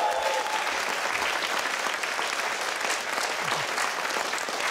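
Studio audience applauding steadily, a dense even clatter of many hands clapping.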